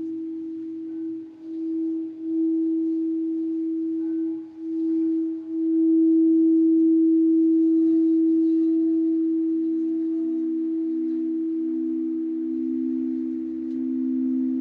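Crystal singing bowls ringing at two close, low pitches. Over the first five seconds or so the sound swells and dips, then it settles into a steady hum. Near the end the lower pitch grows stronger.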